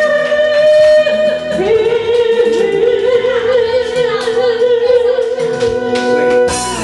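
A young woman singing a karaoke song in Squliq Atayal over a backing track, ending a phrase on a long, wavering held note.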